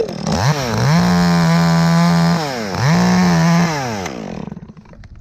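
Chainsaw revved up to full throttle twice, each rev held steady for a second or so, then dropping back down near the end.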